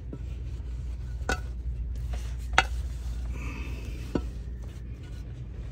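A rag wiping out a removed steel differential pan, with three light metallic clicks as the pan is handled, over a steady low hum.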